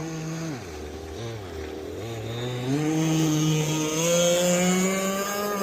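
Proboat Rockstar 48 RC boat's two-stroke gas engine running. Its pitch sags low in the first couple of seconds as the throttle eases off, then rises about two seconds in and holds steady as the throttle is opened again.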